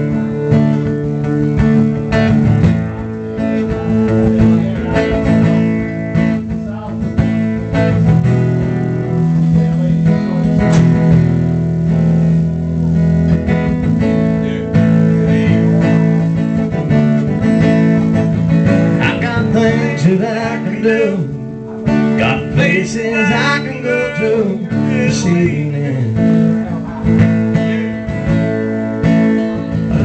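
Two acoustic guitars playing an instrumental break in a country song: steady strummed chords with a picked lead line over them.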